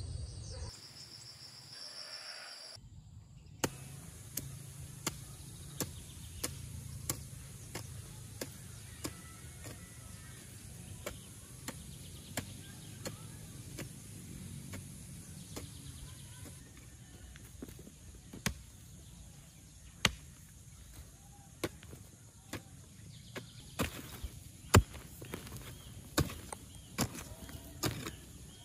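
A hand hoe chopping into loose dry earth, one sharp thud per stroke. The strokes begin a few seconds in at about one and a half a second, then come more unevenly, with the loudest strikes near the end.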